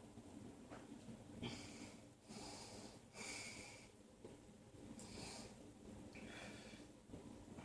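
A man breathing heavily in faint, short, hissy breaths, about five in a row. He is straining to keep down a burp with a stomach full of carbonated soda that hurts.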